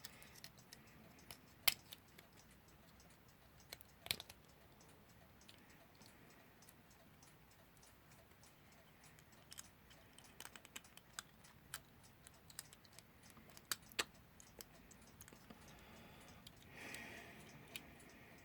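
Quiet, scattered small clicks and taps of metal clock parts and tools being handled during reassembly of a Westclox Baby Ben alarm clock movement, irregular rather than a steady tick.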